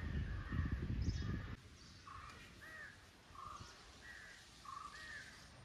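Crows cawing over and over, short calls coming about once or twice a second. A low rumbling noise underneath stops abruptly about a second and a half in.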